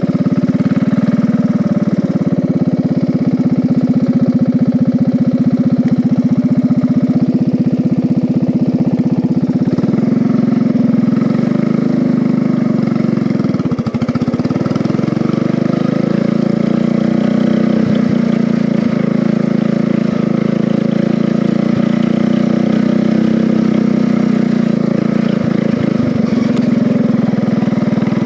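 Small engine of a ride-on lawn mower converted into a race mower, running steadily, with a brief dip in engine speed about halfway through.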